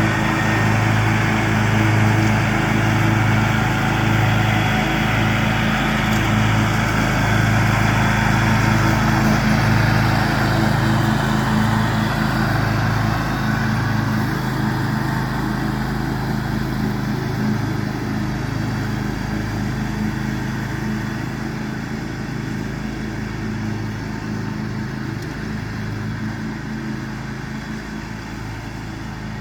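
John Deere X500 lawn tractor mowing grass, its engine running at a steady speed with the cutting deck whirring. It grows gradually quieter through the second half.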